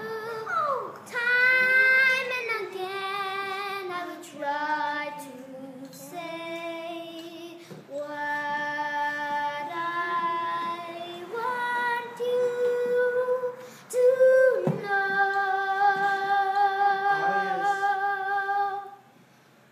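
An eight-year-old girl singing solo and unaccompanied, in long held notes with vibrato and pitch slides between phrases.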